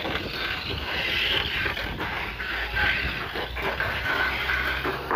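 Tamiya Mini 4WD car running on a plastic track: a steady, slightly wavering high motor whine with scattered clicks and rattles of the car against the lanes.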